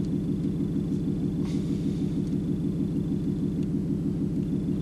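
Steady low background rumble with a faint high whine over it, and a faint tick about one and a half seconds in; no shot is fired.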